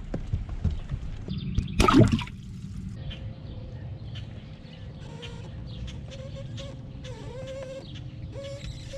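A short burst of splashing water about two seconds in, the loudest moment, then a low background of water with small knocks.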